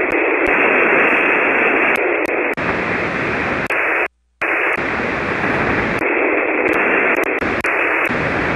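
Shortwave SSB receiver on the 40-meter band putting out loud, steady hiss and static with no readable signal, a sign of poor band conditions. The hiss has several brief dropouts and cuts out completely for about a third of a second near the middle.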